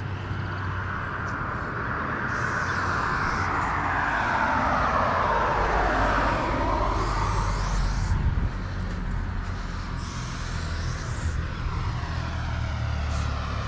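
Aerosol spray-paint can hissing in three short bursts of about a second each, over the rumble of a passing vehicle that swells towards the middle and eases off.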